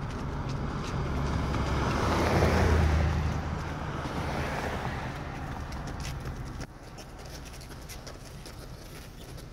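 A vehicle passing, its noise swelling to a peak about two and a half seconds in and then fading, over a steady low hum that cuts off abruptly near seven seconds in.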